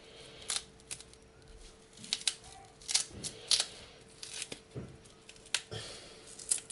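Green plantain being peeled by hand: irregular short scrapes and snaps as the tough green skin is prised and torn away from the flesh.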